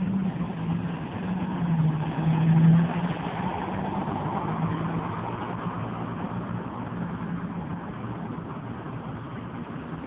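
Road traffic: a motor vehicle's engine hum wavering in pitch over steady road noise, loudest in the first few seconds and fading gradually.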